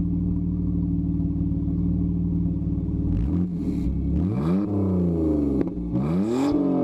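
BMW E46 325ti's straight-six engine running through an exhaust with the muffler deleted and replaced by a stainless tube: a steady idle for about three seconds, then two quick revs, the pitch rising and falling each time.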